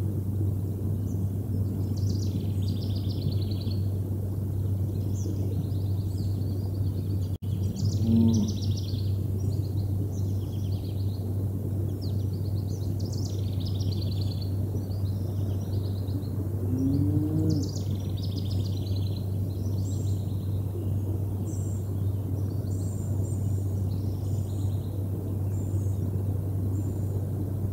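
Small songbirds chirping and singing throughout over a steady low hum, with two lowing moos from cattle in a misty pasture, one about a third of the way in and one a little past the middle. The audio drops out for an instant just before the first moo.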